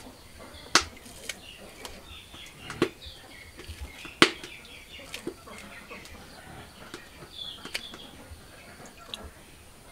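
Sharp snaps, four clear ones a second or two apart with fainter ones between, as vegetable stems are broken by hand. Birds chirp in the background.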